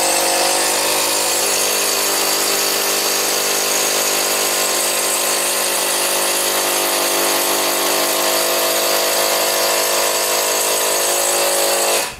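Mollar CIDR12150U 12-volt cordless impact driver hammering a long 8 cm wood screw into softwood without a pilot hole. It is a steady, very noisy hammering rattle that cuts off suddenly near the end.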